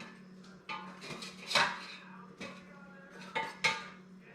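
Spatula scraping and clinking against the air fryer basket as donuts are turned over, in several short separate strokes. A faint low steady hum runs underneath.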